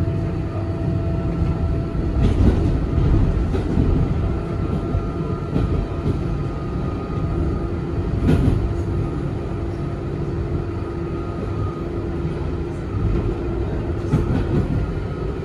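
DSB IR4 electric multiple unit running at speed, heard from inside the carriage: a continuous rumble of the wheels on the rails with steady humming tones over it. A few sharp knocks come about two and a half seconds in, about eight seconds in and near the end.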